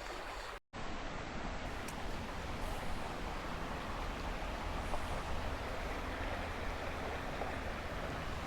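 Steady rushing of a flowing trout stream, with a momentary gap about half a second in where the recording cuts.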